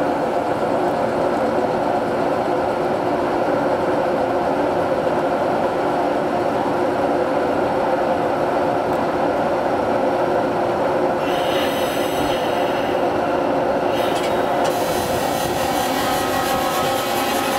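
Underfloor electrical equipment of a Meitetsu 3500 series train with a Toyo GTO VVVF inverter, humming steadily with a few held tones while the train stands. About eleven seconds in, a high hiss joins for a few seconds. Right at the end the first rising tones of the GTO inverter begin as the train starts to draw power.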